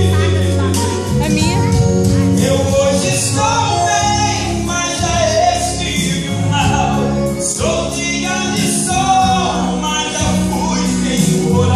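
A man singing a gospel song into a microphone, amplified, over instrumental accompaniment with steady bass notes.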